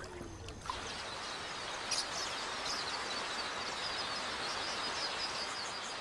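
Steady outdoor ambience: an even hiss with faint high chirping over it, starting under a second in.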